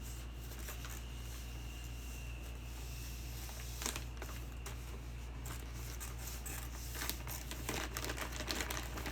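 Plastic water bottles and their packaging rustling and crinkling as they are handled, with a sharp click about four seconds in and a run of light clicks and crinkles near the end, over a steady low hum.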